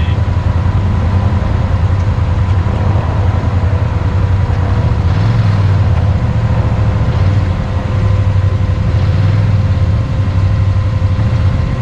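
Can-Am XMR 850 ATV with a slip-on exhaust, engine running at a fairly steady throttle: a loud, low drone with only small dips and no sharp revs. A faint steady high whine sits above it.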